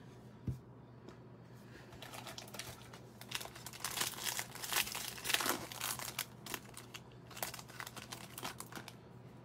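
A 2020 Bowman Draft jumbo trading-card pack's wrapper being torn open and crinkled as the cards are pulled out, loudest in the middle. A soft thump comes about half a second in.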